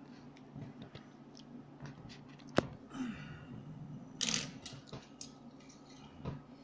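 Scattered small clicks and scrapes of close handling, with one sharp click about two and a half seconds in and a short hiss about four seconds in, over a low steady hum.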